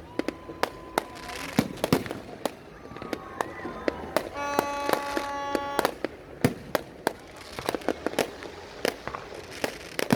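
Fireworks going off in a rapid, irregular string of sharp cracks and bangs. A steady horn-like tone is held for about a second and a half midway through.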